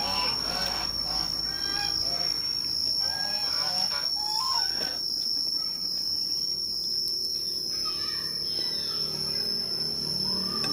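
Steady high-pitched insect drone, with birds chirping in short rising and falling notes during the first few seconds and again near the end.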